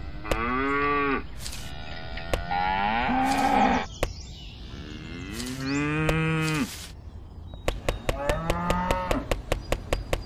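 A cow mooing: four long moos, each falling in pitch, with a rapid run of sharp clicks during the last one.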